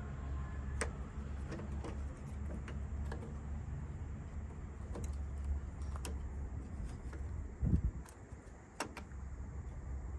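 Scattered small clicks and taps of a door lock cylinder and its parts being handled and fitted onto the lock mechanism, over a steady low hum, with one dull knock about three quarters of the way through.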